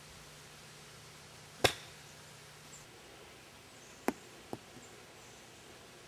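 A golf club strikes a ball with one sharp click. About two and a half seconds later come two lighter knocks, about half a second apart.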